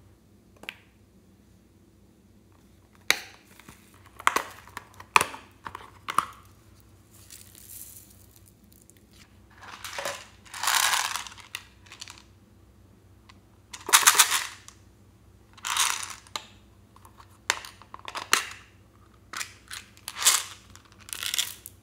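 Small plastic cases clicking, and plastic beads and sprinkles poured into a glass dish of slime, rattling in several short pours.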